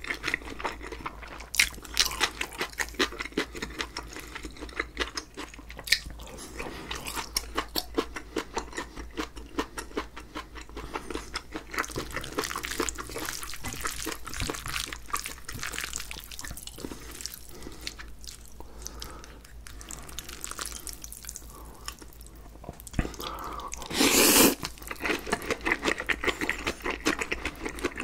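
Close-miked mukbang eating sounds: wet chewing and lip-smacking clicks of a mouthful of spicy mixed noodles with sea squirt, and the sticky squelch of chopsticks tossing noodles in a glass bowl. One short, loud burst comes near the end, followed by more chewing.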